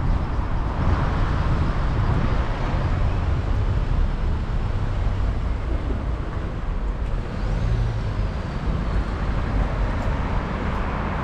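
Road traffic on a busy town street: a steady rumble of passing cars and other vehicles.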